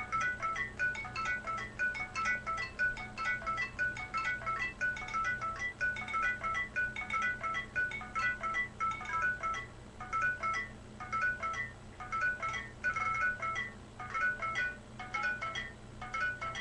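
Rapid, continuous pattering of short high plinks at a few fixed pitches, many per second, which the listener takes for rain or hail although it is not raining outside. A steady low hum runs beneath.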